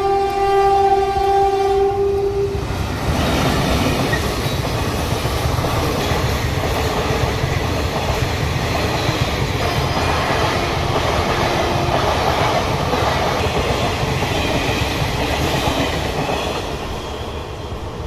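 A passenger train's horn sounds one steady blast that stops about two and a half seconds in. Then the train's coaches roll past with a continuous rumble of wheels on the track, easing off slightly near the end.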